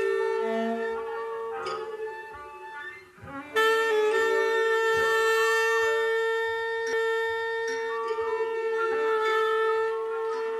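Tenor saxophone holding long notes in a live jazz performance. One held note fades out about three seconds in. After a short gap, a single high note starts abruptly and is held steadily for about seven seconds.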